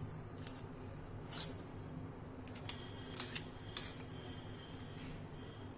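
A spoon pressing and scraping grated ginger against a tea strainer to squeeze out its juice: a few short, quiet scrapes and clinks spread over several seconds.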